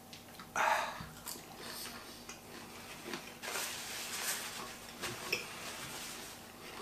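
Eating sounds at a table: a short loud breathy exhale after a swallow of beer about half a second in, a dull knock as the glass mug is set down, then a paper napkin rustling across the mouth around the middle, with small ticks of crayfish shells.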